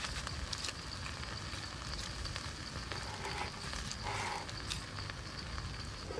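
Charcoal embers under a roasting chicken crackling and ticking faintly over steady outdoor ambience with a constant high insect-like hum and a low rumble; a brief louder sound stands out about four seconds in.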